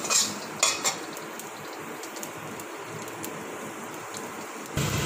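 Chopped garlic sizzling in a little hot oil in a wok. A metal spatula clicks against the pan a few times in the first second. A low hum comes in near the end.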